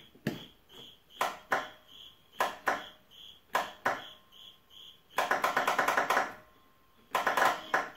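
Honda Harmony 1011 riding mower's starter solenoid clicking each time the key is turned, first in pairs of sharp clicks, then in rapid chattering runs about five seconds in and again near the end. The engine never cranks: the mower's no-start fault.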